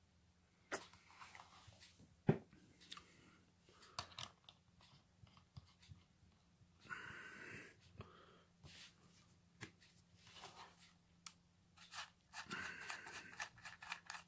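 Scattered small clicks, taps and handling noises of hands working a metal rebuildable tank atomizer (Exvape Expromizer V4) and an e-liquid bottle, with brief scraping noises about seven seconds in and again near the end.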